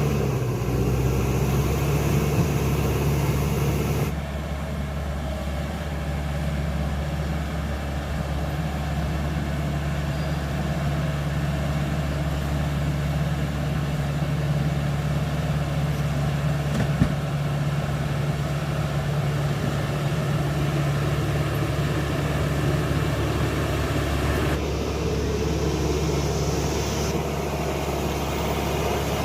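The diesel engine of a CAT D5K XL crawler bulldozer running steadily with a deep drone. The sound changes abruptly about four seconds in and again near the end, and there is one sharp click past the middle.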